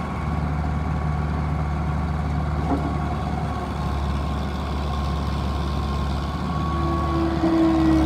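Bobcat 743 skid steer's diesel engine running steadily. A higher whine joins about two-thirds of the way in and grows louder near the end.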